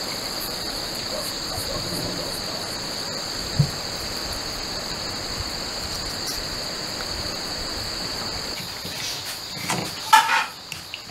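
Crickets chirring steadily in one continuous high trill. A single low thump comes about three and a half seconds in, and a short clatter near the end.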